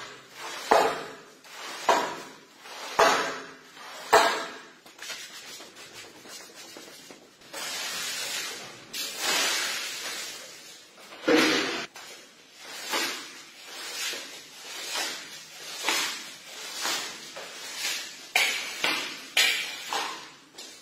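Wet shag rug being squeegeed, with wet squelching push strokes about once a second as water is forced out of the pile. Midway there is a few seconds of water pouring and splashing onto the rug, then more strokes about once a second as a squeegee pushes soapy water across the wet tiled floor.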